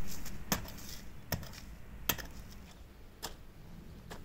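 Steel garden spade (kassi) blade chopping into dry, clumpy earth: five sharp strikes about a second apart.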